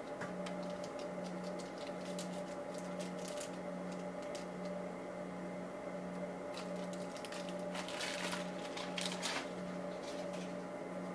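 Steady room hum from running equipment, one tone pulsing on and off a little more often than once a second, with two short rustles of gloved hands handling a plastic syringe near the end.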